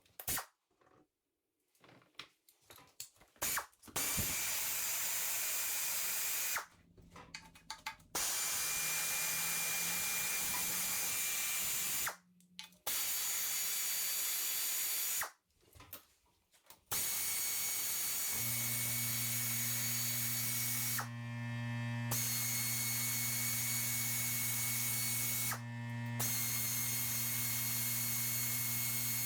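Power tool running in several long, even bursts of a few seconds each, spinning off bolts. A steady low hum joins in over the last third.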